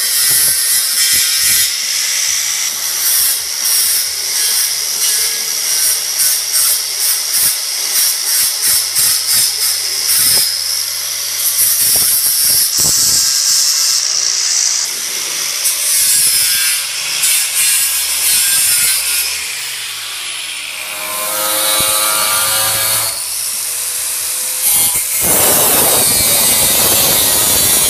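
Angle grinder grinding paint off the sheet-steel welding cart down to bare metal, to prepare it for welding. A continuous, loud grind that pulses as the disc is worked over the surface, with the motor's whine showing through for a couple of seconds about 21 seconds in.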